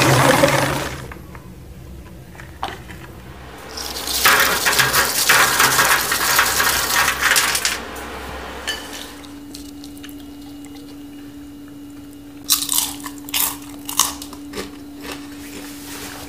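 Kitchen sounds of crispy fried oyster mushrooms being made: a few seconds of loud, even hissing, then a quiet stretch with a faint steady hum, then a run of sharp crisp crunches and clicks from the crispy mushroom chicharon.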